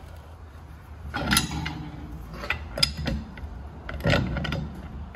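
Metal clicks and rasps of a pipe wrench gripping and turning on a hydraulic cylinder while tightening it up, in three short bursts about a second and a half apart.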